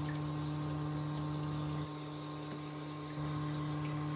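Water running steadily from a handheld shower head in a bathtub, with a steady low hum under the hiss; it drops slightly for about a second in the middle.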